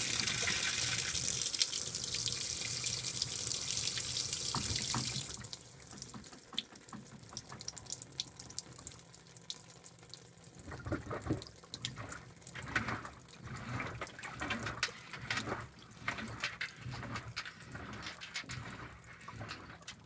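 Water pours into the tub of a 2012 LG top-load washing machine while it fills for a delicates cycle, then cuts off suddenly about five seconds in. Softer, irregular swishes of water in the tub follow.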